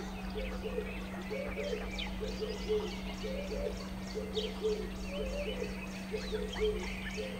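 Background nature ambience: short low hooting calls repeat about twice a second, with higher bird chirps over them and a faint steady hum beneath.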